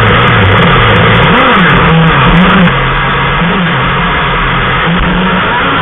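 Gasoline engine of a radio-controlled power boat running, its pitch rising and falling as the throttle is worked. It gets a little quieter about three seconds in.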